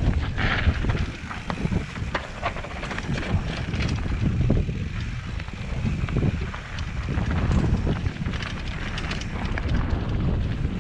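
Wind buffeting the microphone of a helmet-mounted camera on a mountain bike riding fast down a dirt trail, over a steady low rumble of tyres on dirt. Frequent short clicks and rattles come from the bike jolting over bumps.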